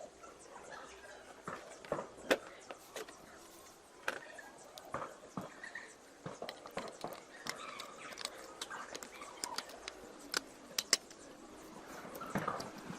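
Irregular light clicks and taps of small hard parts being handled, about a dozen scattered over the stretch, with no motor running.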